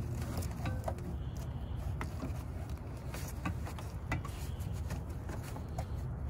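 Gloved hands working a rubber headlight bulb cover into place behind the headlight housing: scattered small clicks and rubbing of rubber and plastic, over a steady low rumble.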